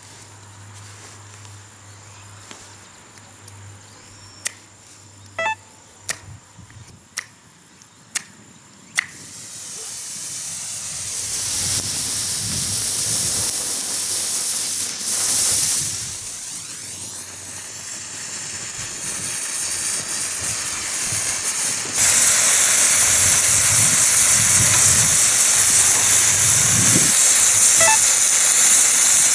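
A car emergency road flare is struck about six times, each strike a sharp scrape-click, before it catches. It is past its expiry date and needed several strikes to light. It then burns with a loud, steady hiss that builds over several seconds and jumps louder about two-thirds of the way through.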